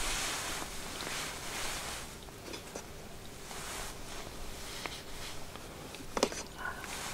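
Ladle serving hot pot from a metal camp pot into a silicone bowl: a few light clinks and scrapes against the pot, with a sharper knock about six seconds in, over a steady hiss.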